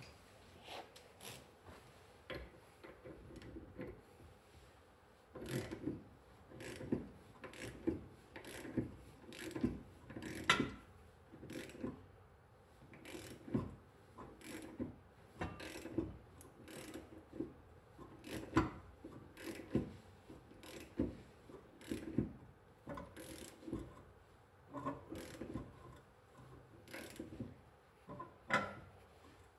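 Wrench clicking in repeated short strokes, a click or two every second or so, as it winds in the forcing bolt of a tie rod end puller to press a rusted tie rod end off the steering knuckle.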